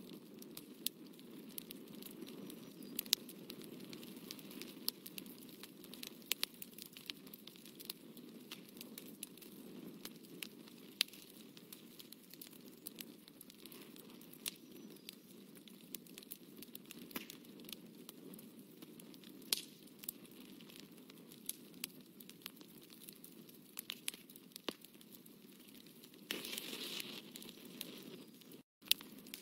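Fine-tipped pen working on textured watercolour paper: a faint steady scratchy rustle with many small sharp ticks as the tip meets the paper, and a longer, louder scratch near the end.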